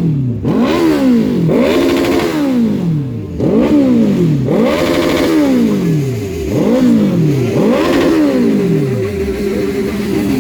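A large motorcycle engine revved hard again and again in quick throttle blips, each one climbing sharply and dying away. Near the end it settles back to a steady idle.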